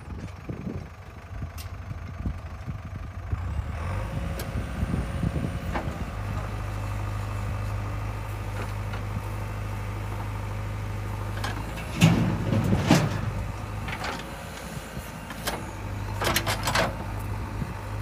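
Diesel engines of a JCB 3DX backhoe loader and a Mahindra tractor running steadily while the backhoe digs and dumps soil. The drone firms up about six seconds in, with bursts of loud clanks and knocks from the working bucket and arm around twelve seconds in and again a couple of seconds before the end.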